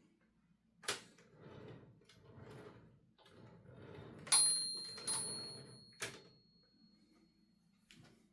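Olivetti Linea 88 manual typewriter being worked by hand: a sharp click, then several soft sliding, rasping sweeps of the mechanism. Its bell then dings twice, about four and five seconds in, and rings on for a few seconds, followed by a couple of clicks.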